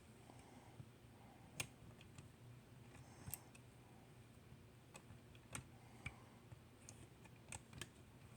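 Faint, scattered small clicks and taps of a diecast toy truck and trailer being handled while the trailer is coupled to the tractor's fifth wheel.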